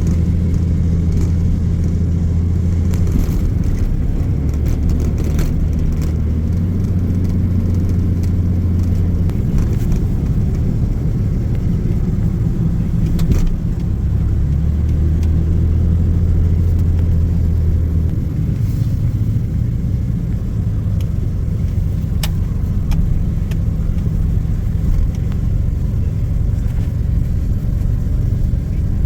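A vehicle's engine and road noise while it is driven, the low engine note shifting in pitch several times as it changes speed.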